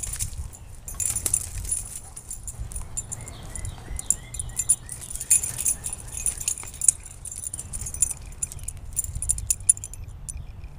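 A dog's metal chain collar and tag jingling in irregular bursts as a Doberman moves about and mouths a ball, dying away near the end when the dog stands still.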